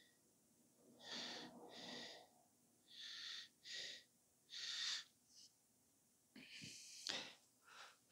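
Faint breathing close to the microphone: a series of short breaths in and out, some in pairs, with a couple of soft knocks near the end.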